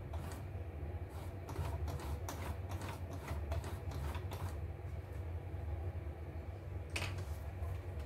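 Irregular light clicks and scrapes of hands handling parts inside an opened embroidery machine's mechanism, mostly in the first half, with one sharper click near the end, over a steady low hum.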